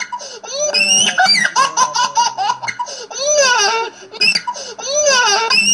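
High-pitched laughter sound effect, looped, with the same burst of giggling coming round about every second and a half.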